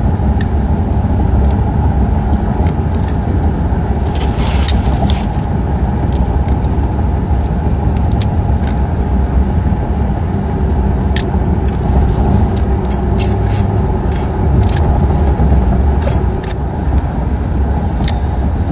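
Steady low rumble of road and engine noise inside a car's cabin, with a few scattered sharp clicks.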